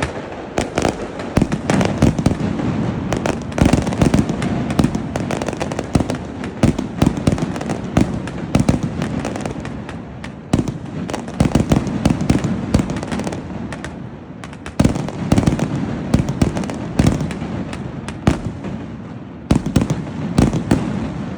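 Fireworks going off in quick succession: many sharp bangs and crackles over a continuous rumble, easing briefly a couple of times before dense volleys pick up again.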